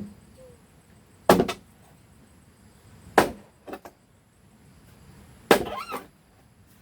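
Hand-tool blows struck on building material, one about every two seconds: three sharp strikes, two light taps after the second, and a short rattle after the last.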